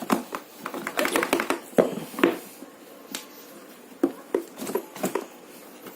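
Hands working at a tight cardboard box to pull the contents out: scraping and rustling with a run of sharp taps and knocks, the loudest about two seconds in, then a quieter stretch and more clicks.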